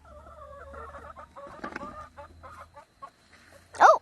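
Domestic hens clucking around their feed, with a short knock about halfway through and one loud squawk that rises and falls just before the end.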